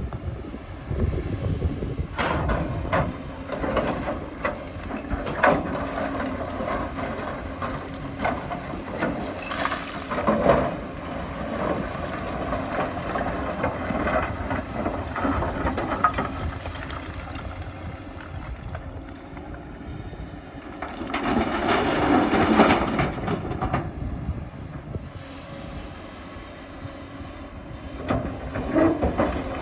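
Hydraulic excavator's diesel engine running under load, with the bucket scraping and knocking against rock in irregular strikes and a louder grinding stretch about two-thirds of the way through.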